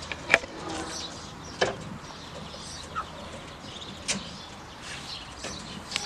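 Ducklings feeding from a shallow pan of bran, with about four sharp taps of their bills against the pan. Faint bird chirping runs through the background.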